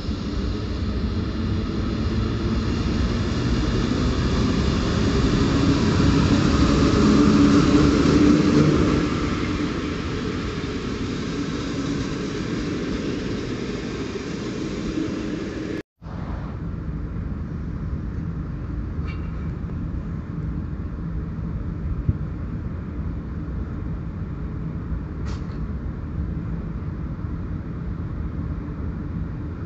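Electric locomotive-hauled passenger train running past along a station platform. Its rumble and wheel noise build to the loudest point about eight seconds in, then ease as the coaches go by. After a sudden break about halfway through, a steadier low rumble carries on with a couple of faint, brief high tones.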